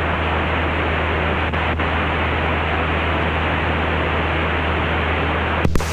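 Steady loud hiss of an open aviation radio channel in the headset audio, limited to the voice range and ending with a click near the end: a transmitter left keyed on the tower frequency, which the pilot puts down to somebody's stuck radio. Under it runs the steady low drone of the Mooney M20C's engine and propeller.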